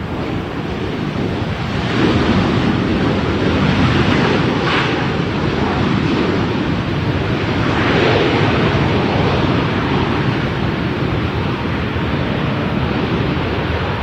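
Jet engine noise of a landing Boeing 737, a loud, even rumble with no distinct tones. It builds over the first two seconds and stays loud, swelling slightly a few times.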